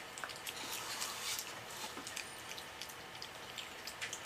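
Faint chewing and small mouth clicks of people eating masala dosa by hand, with a few soft clicks scattered through.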